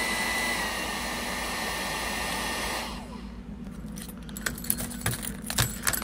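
Electric heat gun blowing hot air into a frozen deadbolt lock, switched off about three seconds in so that its fan winds down with a falling whine. Keys then jangle and click as a key is put into the lock.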